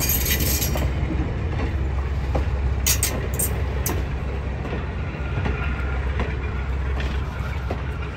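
Passenger coaches rolling slowly past on the rails, a steady low rumble with scattered wheel clicks and a few short high-pitched squeaks of wheel on rail about three to four seconds in.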